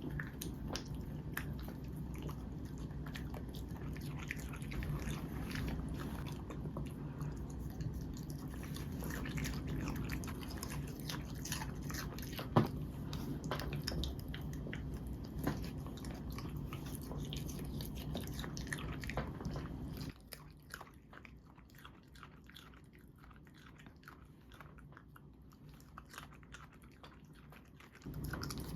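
Poodle crunching and chewing vegetables, with many short crisp bites throughout.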